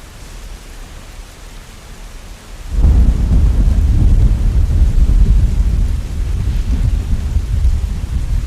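Steady rain hiss, then about three seconds in a loud, low rumble of thunder breaks in suddenly and rolls on under the rain, easing a little near the end.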